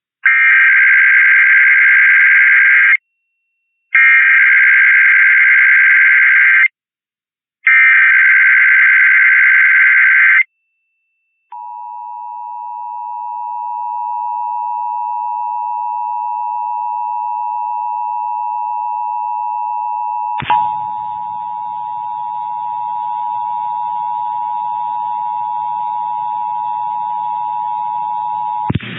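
Emergency Alert System test broadcast over the radio: three bursts of SAME header data, a warbling two-pitch digital screech of about three seconds each with short gaps, then the EAS two-tone attention signal (853 and 960 Hz together) holding steady for about 17 seconds. A click about two-thirds of the way through brings in a faint hiss under the tone.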